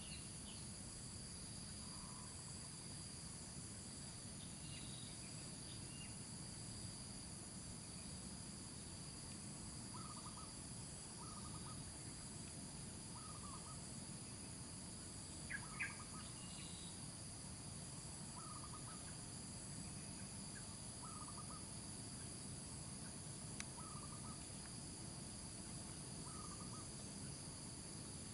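Steady insect chorus with thin high-pitched tones. About a third of the way in, a bird starts repeating a short call roughly every second or so, with one louder call near the middle. A few higher chirps come early on.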